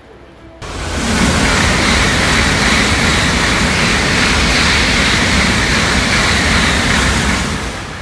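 Shinkansen bullet train rushing past a station platform at speed: a loud, steady rushing noise that sets in suddenly about half a second in and tails off near the end.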